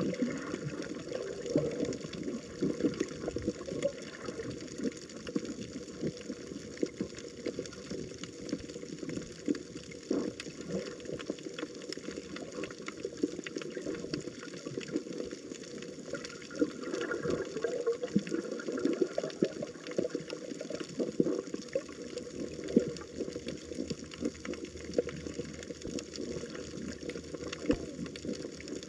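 Water running and splashing steadily, with many small spatters.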